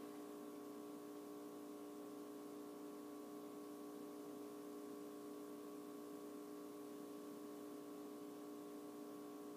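Faint, steady hum made of several constant tones over a light hiss, unchanging throughout, with no distinct events.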